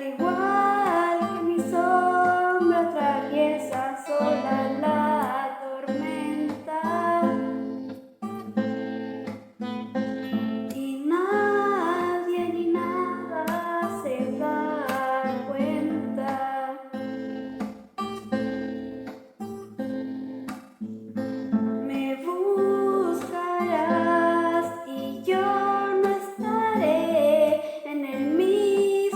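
Acoustic guitar, in standard tuning, playing an original song, with a voice singing a gliding melody over it.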